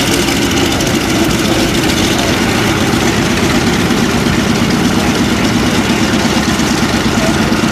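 Vought F4U Corsair's Pratt & Whitney R-2800 eighteen-cylinder radial engine running at low taxi power as the fighter rolls along the runway: a steady, loud rumble with a fast, uneven beat.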